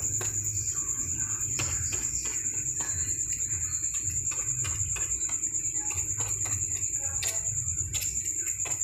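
A cricket trilling steadily at a high pitch, over a low hum, with light irregular clicks from a fork pricking pizza dough against a metal baking tray.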